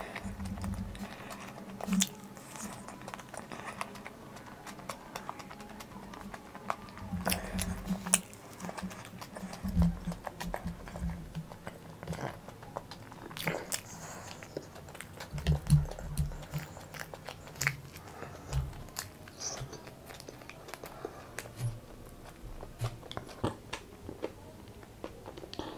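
A person chewing and biting into a veg sandwich, with irregular wet mouth clicks throughout.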